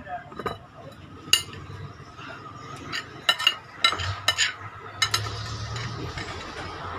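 Eating at a table: a utensil clinking sharply against a dish, about seven clinks spread unevenly, most between three and five seconds in.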